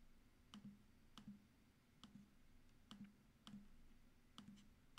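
Faint computer mouse clicks, about eight at irregular intervals, as items are selected in the software.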